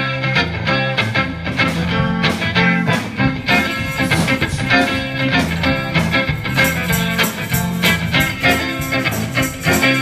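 Live band music led by an amplified electric guitar, with a bass line underneath, playing a steady run of quick notes.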